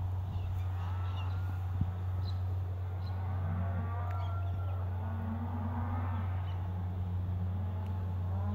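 Cattle mooing several times, long wavering calls each lasting a second or more, over a steady low hum.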